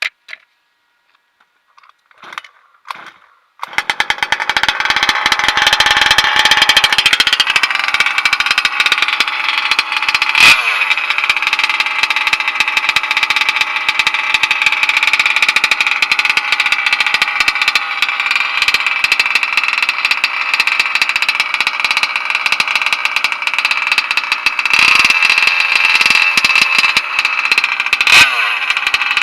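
Small two-stroke gas engine of a 1/5-scale Losi Monster Truck XL with a Bartolone big-bore expansion pipe. It starts about four seconds in, after a few faint short sounds, and then runs steadily, with two brief sharp spikes.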